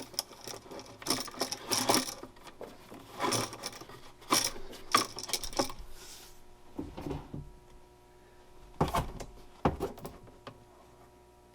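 Electrical cable being pulled through an outlet box: irregular rustling, scraping and clicking of the cable and box, then a few separate knocks.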